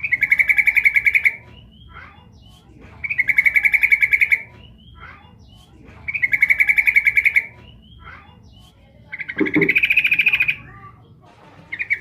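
Female yellow-vented bulbul (trucukan) giving her call to draw a male: four bursts of fast, chattering repeated notes, each lasting just over a second, about three seconds apart. A short low sound comes during the fourth burst.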